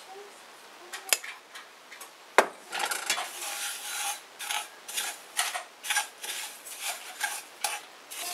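Wooden spatula stirring dry panko breadcrumbs in a nonstick frying pan: rustling, scraping strokes about twice a second. A sharp knock about two seconds in comes just before the stirring starts.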